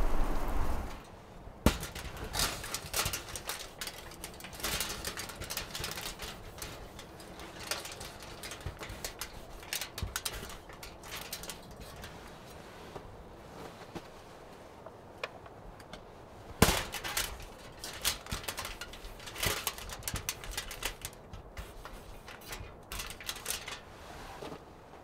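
Wood fire crackling with many irregular sharp pops, one louder pop about two-thirds of the way through.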